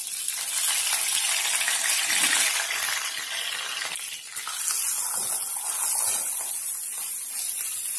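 Curry leaves and dried red chillies sizzling hard in hot coconut oil in a pan as a tempering is fried and stirred. The sizzle dips briefly about four seconds in, then picks up again.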